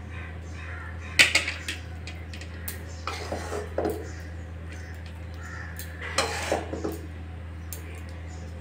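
A serving spatula clattering and scraping against a plate and pan while a thick cooked taro-leaf mash is served out: a few sharp knocks, the loudest about a second in, more around three to four seconds and again about six seconds in. A low steady hum runs underneath.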